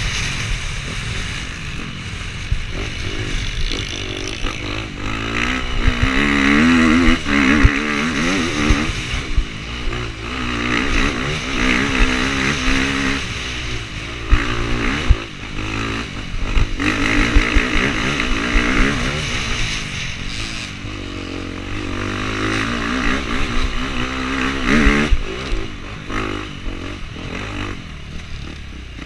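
Dirt bike engine heard from on board, revving hard and dropping back again and again as the rider accelerates, shifts and backs off along the trail. Sharp knocks are scattered through it.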